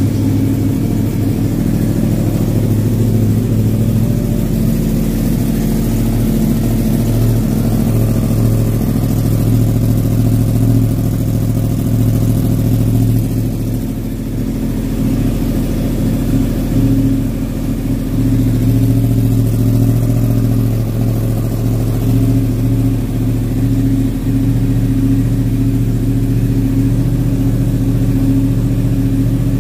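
2022 Yamaha R1's crossplane inline-four idling steadily through an M4 mid-pipe with the stock muffler canister, the catalytic muffler box removed.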